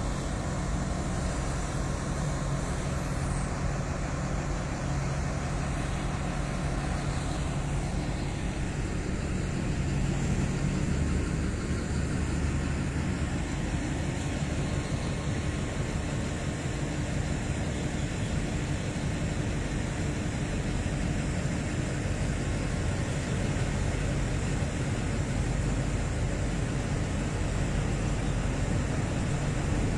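Alsthom (ALS) diesel-electric locomotive's diesel engine running steadily, a low even hum with no change in pace.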